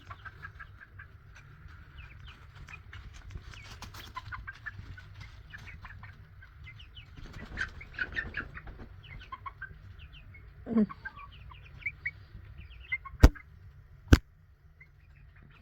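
Young chickens peeping and clucking in many short, high chirps, with one call sliding upward about eleven seconds in. Two sharp knocks come about a second apart near the end, louder than the birds.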